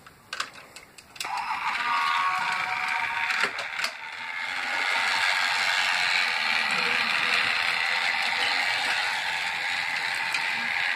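Motorized toy train running steadily along plastic track, its small motor and gears making a continuous mechanical whirr that starts about a second in.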